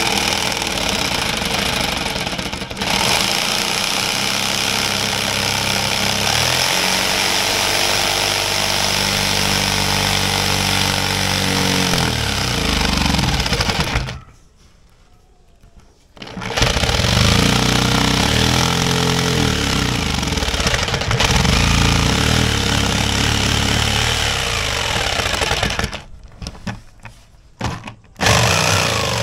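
Makita corded jigsaw with a fine-toothed metal blade running while plunge-cutting into plywood, the tilted blade lowered gradually until it bites through to make a starting hole without a drill. It runs steadily with a rapid chattering, stops for about two seconds midway, starts again, and ends in a few short bursts of the trigger.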